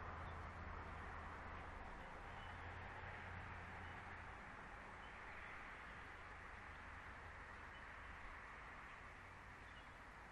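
Faint steady outdoor background hiss from a live nest-cam microphone, with a low hum that fades out about four seconds in and a few faint high bird chirps.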